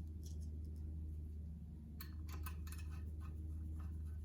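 Small clicks and ticks of a Phillips screwdriver turning the spray-jet retaining screws into a carpet-cleaning hand tool head. There are a few clicks at first and a busier run of them from about halfway, over a steady low hum.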